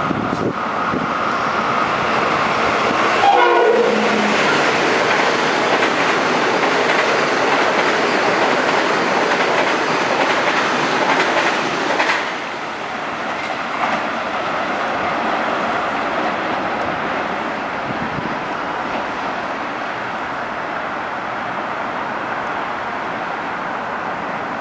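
Metro-North electric multiple-unit commuter train running through the station express, with loud, steady wheel-and-rail noise. The horn sounds once, briefly, about three seconds in. The noise drops suddenly about twelve seconds in and carries on a little quieter.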